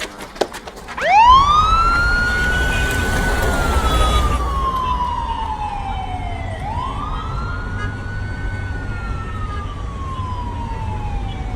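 Police siren wailing, starting about a second in with a quick rise and then a long slow fall, twice over, with a low rumble underneath. A few short knocks come just before it starts.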